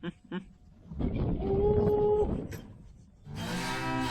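A weaned calf bawls once, one long call of about a second and a half on a steady pitch. Acoustic guitar music begins near the end.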